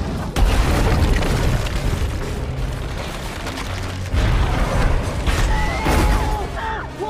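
Film sound effects of fiery explosions: a heavy boom about half a second in and another about four seconds in, over film score music.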